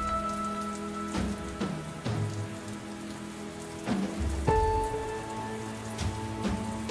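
Steady rain falling on a surface with scattered drops, under a slow, soft melody of long held notes.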